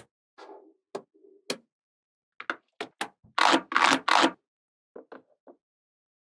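Small magnet balls clicking as they snap onto one another, in separate sharp clicks. In the middle comes a denser rattling clatter of many balls at once, then a few softer clicks.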